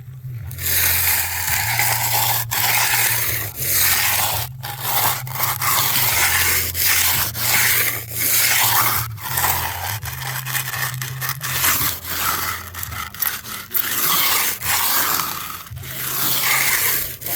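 A hand tool scraping through freshly poured, setting concrete to cut a rebate along the slab's edge, in repeated strokes a second or two long with short breaks between them. A steady low machine hum runs underneath.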